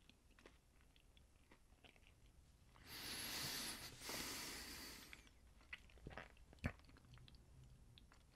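A man quietly chewing a piece of communion bread with his mouth closed: faint wet mouth clicks, two louder hissing stretches of about a second each a few seconds in, and a sharp click later on.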